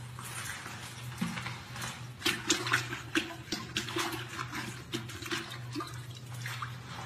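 Water sloshing and splashing in a toilet bowl as a long-handled cleaning tool is swished around in it, a run of quick splashes through the middle, over a steady low hum.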